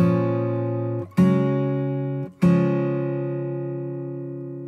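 Background music: an acoustic guitar strumming chords. There are three strums about a second apart, and the last one is left to ring out for a couple of seconds.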